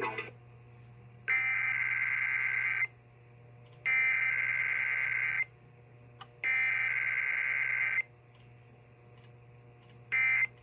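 Emergency Alert System SAME header on a KDKA radio broadcast: three bursts of buzzing digital data tones, each about one and a half seconds long with about a second between them, marking the start of an EAS test. A shorter burst of the same tone comes just before the end, with a steady low hum underneath throughout.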